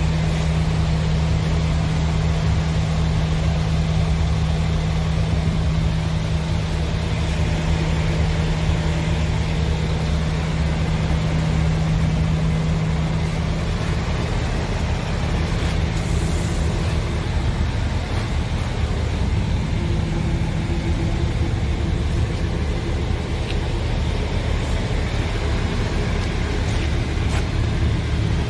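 Scania R tractor unit's diesel engine idling steadily, a low even rumble with a steady hum that fades out about halfway through.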